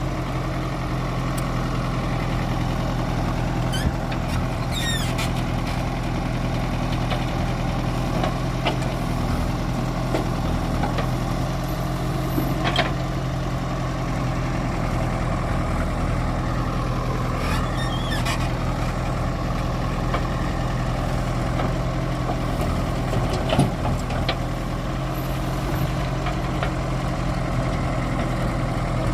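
Heavy diesel engine running steadily, with a few short clanks and squeaks from working machinery.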